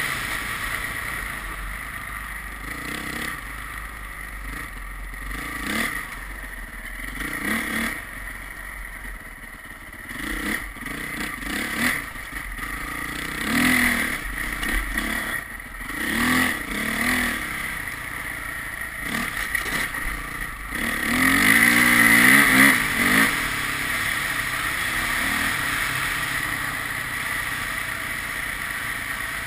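A vehicle engine on the move, revving up in a series of short rising pulls, with the longest and loudest about three quarters of the way through, over steady background noise.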